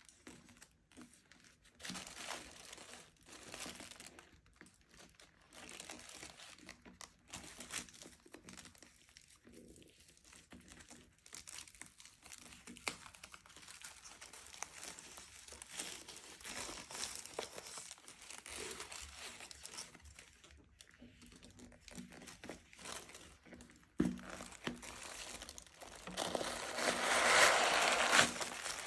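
Tissue paper rustling and crinkling in irregular bursts as it is unwrapped from a leather handbag and its strap. It is loudest near the end, as the crumpled paper stuffing is pulled out of the bag.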